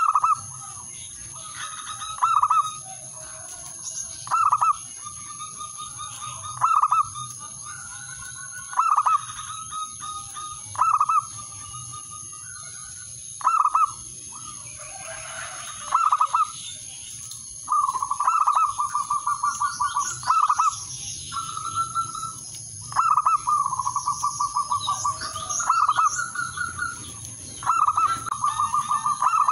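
Male zebra dove (perkutut) cooing its territorial song, a male calling to rivals. Short phrases come about every two seconds at first, then longer rapid stuttering trills in the second half.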